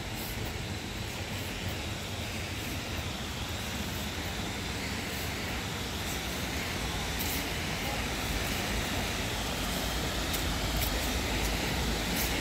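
Rushing water of a small river spilling over rock ledges in low waterfalls, a steady rush that grows gradually louder.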